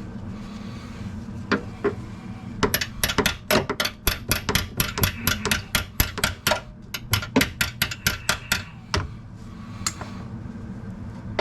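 Hammer tapping rapidly on metal, about four blows a second for roughly six seconds with a short break in the middle, to break loose a seized old steel brake line fitting.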